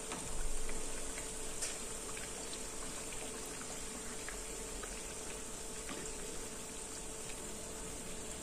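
Sabudana vadas deep-frying in a pan of hot oil: a steady, soft bubbling sizzle with small scattered crackles, a little louder about half a second in.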